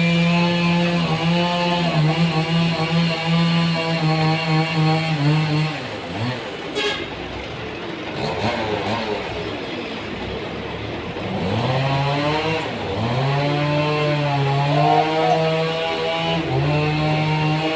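Sawmill engine running at a steady speed, then dropping and wavering in pitch for several seconds about six seconds in, before picking back up to steady speed: the saw slowing under load while cutting a log.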